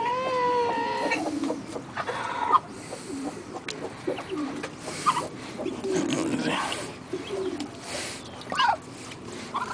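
Calls from a Muscovy duck and her ducklings: a held call about a second long at the start, then shorter scattered calls, some rising in pitch, among light clicks and knocks.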